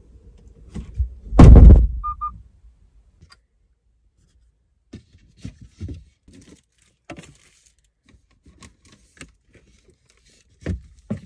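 Kia Seltos tailgate pulled shut from inside the cargo area with one loud thunk, which cuts off the steady outside noise, followed by two short beeps. Then come scattered light knocks and clicks of a wooden storage box lid being lifted and things handled inside it.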